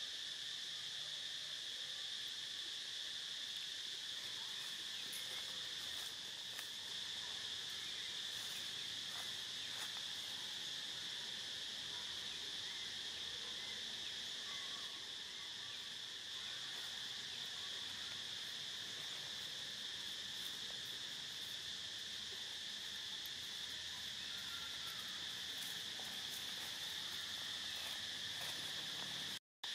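A steady, high-pitched drone of an insect chorus that holds level throughout and cuts out for an instant near the end.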